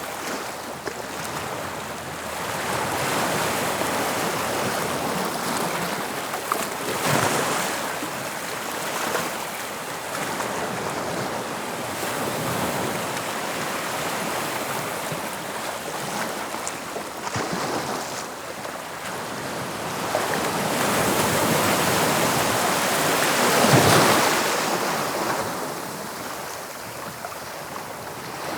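Sea waves breaking and washing on the shore, a continuous surf noise that swells and ebbs every few seconds, with the biggest surge near the end. Some wind buffets the microphone.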